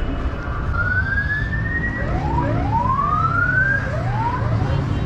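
Vehicle siren sounding in several rising sweeps that overlap and break off, about one to four seconds in, over a steady rumble of street traffic.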